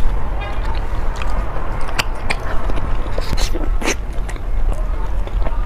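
A person eating close to the microphone, biting and chewing, with several sharp clicks and smacks over a steady low hum.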